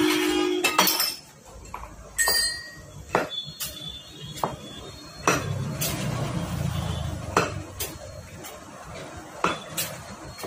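Irregular metallic clinks and knocks from a motorcycle front fork tube being handled and worked on, the chrome tube striking its parts and tools, a few strikes ringing briefly.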